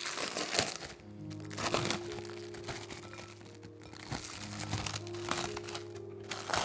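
Plastic cling film crinkling in several bursts as it is peeled back off a glass bowl, over steady background music.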